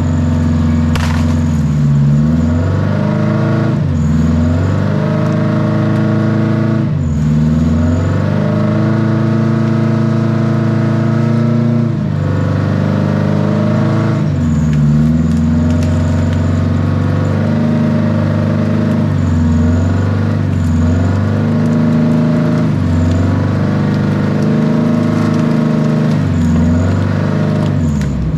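Wheel dozer's diesel engine working hard, running loud and steady with its pitch dipping and recovering every few seconds, with occasional clatter.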